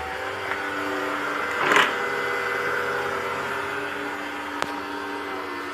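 Robot vacuum cleaner running with a steady motor whine, a brief louder rush of noise about two seconds in and a sharp click near the end.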